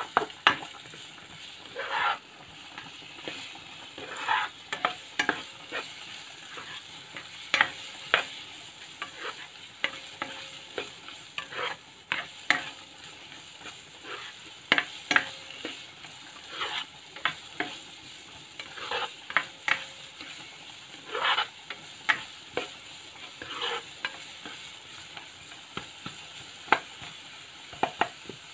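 Sliced onions being stir-fried in oil in a frying pan: a spatula scrapes and knocks irregularly against the pan, over a faint steady sizzle.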